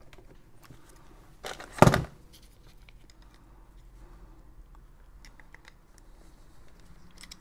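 A rewireable plastic mains plug and a screwdriver being handled: a loud, sharp clack about two seconds in, then scattered light clicks of plastic and metal.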